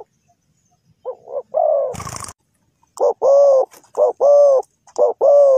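Spotted doves cooing. One softer three-note coo comes about a second in, then from about three seconds in a louder two-note coo repeats roughly once a second. A brief noisy knock sounds about two seconds in.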